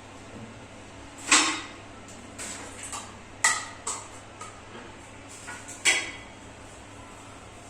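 Sharp metallic clinks and knocks of plumbing tools and fittings being handled: four loud ones spread over about five seconds, with lighter clicks between.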